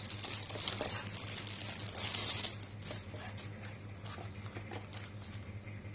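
Rustling and crinkling of packaging being handled, with scattered small clicks, louder for the first two and a half seconds and fainter after, over a steady low electrical hum.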